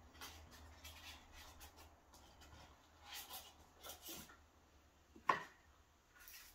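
Hands handling a cardboard box and its foam insert: faint rubbing and scraping as the foam tray is worked out of the box, with one sharp knock about five seconds in.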